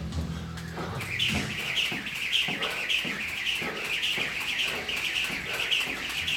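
A jump rope turning fast, squeaking with each revolution: a rhythmic chirp about three times a second with light ticks of the rope, starting about a second in.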